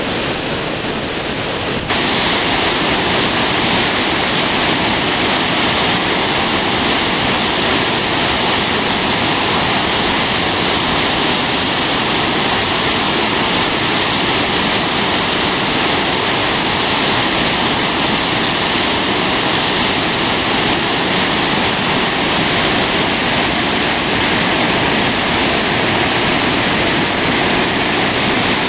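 The Spokane River near flood stage, whitewater cascading over falls: a loud, steady rush of water that grows louder about two seconds in.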